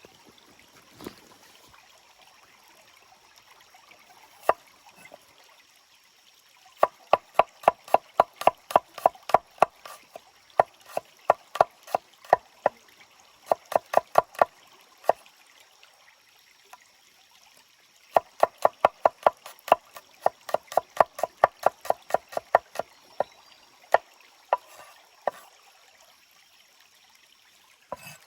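Two long runs of quick, even knocks, about four a second, over a stream running steadily in the background.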